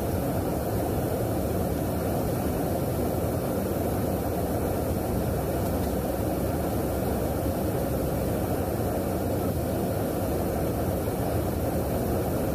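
Steady, even rushing drone of an aircraft in flight, heard from inside the refueling tanker: airflow and engine noise.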